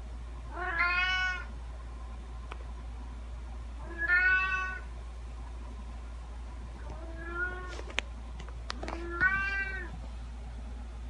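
Domestic cat meowing four times, each meow under a second long and a few seconds apart, the third one fainter. A few sharp clicks come just before the last meow, over a steady low hum.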